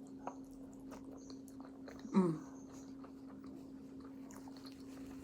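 A person chewing food close to the microphone, with small wet mouth clicks and a short hum of the voice about two seconds in, over a steady low electrical hum.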